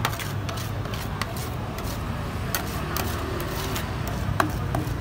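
Metal spatulas tapping and scraping on the frozen metal pan of a Thai rolled-ice-cream stall as the cookies-and-cream base is chopped and spread thin: irregular sharp clicks, the loudest about four seconds in, over a steady low hum.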